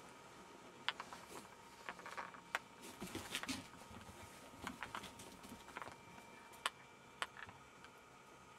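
Jack Russell Terrier puppies' paws and claws tapping and scrabbling on a rag rug and wooden floorboards as they play and scamper: faint, irregular clicks and taps, busiest about three seconds in.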